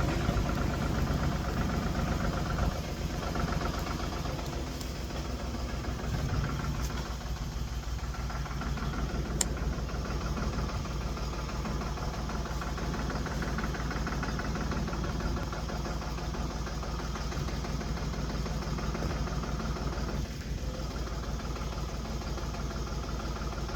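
An engine running steadily: a low, even hum with a fast, regular pulse.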